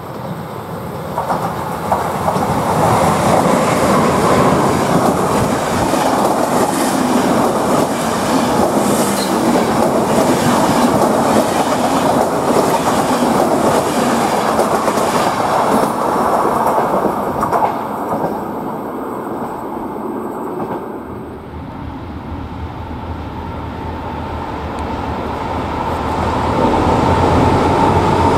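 RegioJet passenger train of coaches running through a station, wheels clattering rhythmically over rail joints and points, loud for most of the first two-thirds and then fading. Toward the end, a ČD Cargo class 742 diesel locomotive heading a freight train approaches, its engine growing louder with a steady whine.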